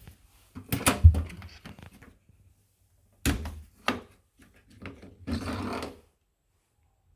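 Handling of a drum washer-dryer's parts, such as its filter or door: a cluster of knocks and clatter, two sharp knocks, then a short scraping rustle.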